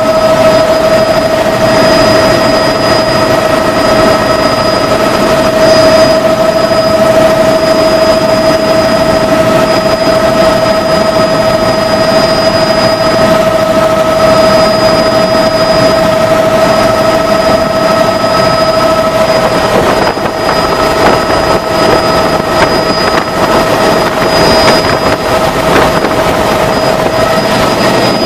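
Helicopter in flight: loud, steady engine and rotor noise with a constant whine running through it, the whine fading somewhat and the level wavering a little about two-thirds of the way in.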